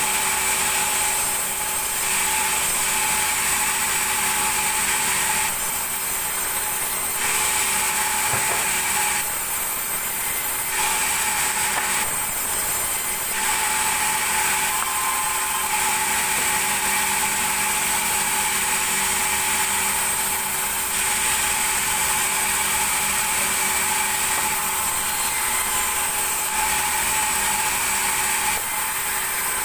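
Large sawmill band saw running with a steady whine while its blade rips lengthwise through timber planks. The hissing cutting noise eases off briefly several times between passes, then picks up again.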